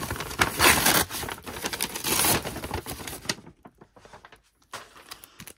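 Kraft-paper envelope and plastic wrapping rustling and crinkling as a package is opened by hand. The noise dies down about three seconds in, leaving a few light clicks and a short rustle near the end.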